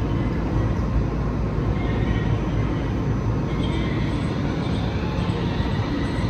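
Portram low-floor tram standing at the platform with its equipment running, a steady low rumble and hum, then starting to pull away near the end.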